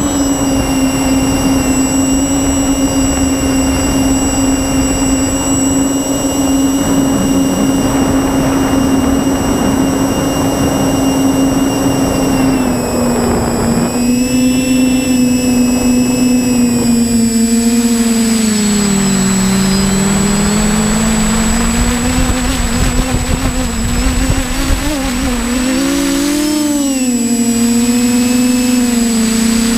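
TBS Discovery Pro quadcopter's brushless motors and propellers humming in flight, heard from the GoPro on board, with wind noise underneath. The pitch holds steady for the first dozen seconds, then drops and wavers as the motor speed changes before settling again near the end.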